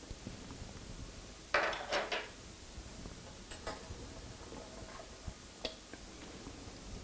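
Clinks and knocks of lab glassware and fittings being handled as the flask and tubing assembly is taken off the top of a density column. A cluster of clatters comes about one and a half seconds in, another short one around three and a half seconds, then a few faint ticks.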